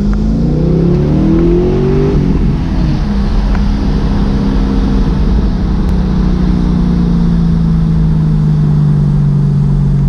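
Holden Commodore SSV's 6.0 L LS2 V8 running through an X-Force dual 3-inch cat-back exhaust with Varex mufflers, heard from inside the cabin while driving: the engine revs up, rising in pitch over the first two seconds, then settles into a steady low drone that slowly drops in pitch.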